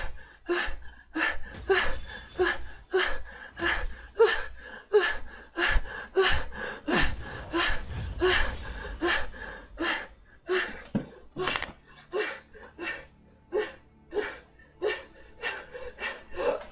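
A man coughing over and over in a steady rhythm, about two to three short, gasping coughs a second.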